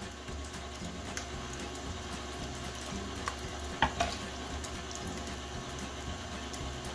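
Tilt-head stand mixer running on low, its wire whisk swishing and sloshing through egg whites that are still liquid and just starting to foam. A few light clicks come from sugar being broken up in a ceramic ramekin.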